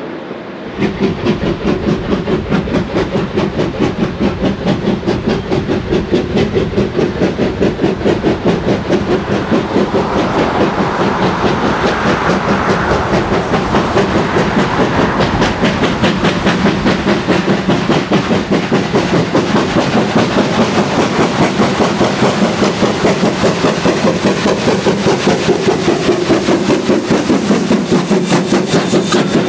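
New Zealand Railways Ab class 4-6-2 steam locomotive working hard, its exhaust beating rapidly and evenly at about four beats a second, loud from about a second in.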